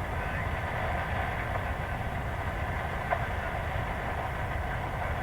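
Air traffic control radio held open with no one speaking: a steady, narrow-band radio hiss that cuts off suddenly, over a low steady rumble.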